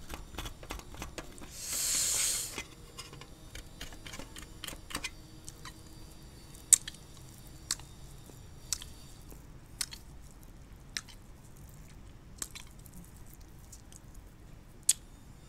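A needle scratching and tapping at a dalgona baking-soda sugar candy, with a short breathy hiss about two seconds in; then the candy being licked to melt the outline, heard as sharp wet mouth clicks roughly once a second.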